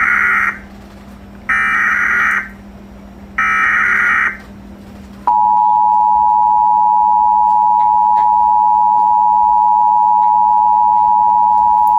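Emergency Alert System signal: three short bursts of warbling SAME header data, then about 5 s in the steady two-tone EAS attention signal starts and holds.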